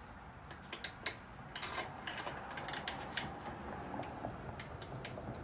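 Light, irregular metal clicks and clinks of a wrench being fitted and turned on a 9/16 bolt on a garden tractor's frame.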